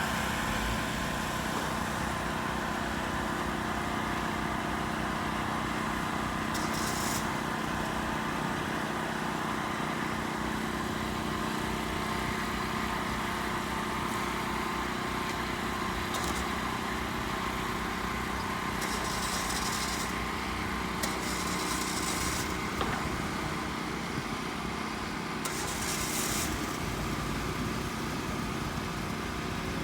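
Heavy engine, most likely the crane's, running steadily at a constant pitch, with a few short hisses breaking in.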